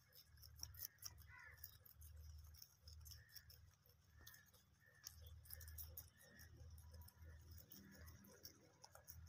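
Faint, irregular crisp clicking and rustling of a group of young rabbits nibbling and chewing chopped greens.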